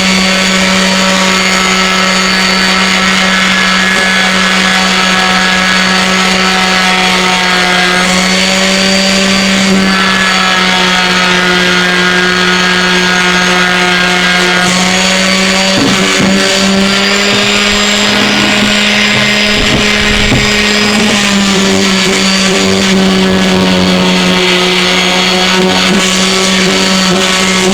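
Ryobi 5-inch random orbital sander running continuously while sanding wood with an 80-grit disc: a steady motor hum whose pitch shifts slightly now and then, with a couple of brief knocks partway through.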